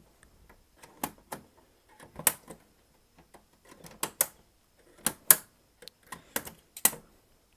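Xbox 360 Slim's plastic casing clicking and snapping as its side-panel clips are pried loose with a small flathead screwdriver: a string of sharp, irregular clicks and taps, the loudest about five seconds in.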